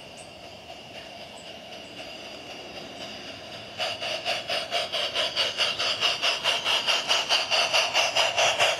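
Simulated steam-locomotive exhaust chuffs from a MyLocoSound Universal steam soundcard in a battery-powered 16mm-scale model saddle tank loco. The chuffs are faint at first, then from about four seconds in beat loud and fast at an even rate as the loco runs up close.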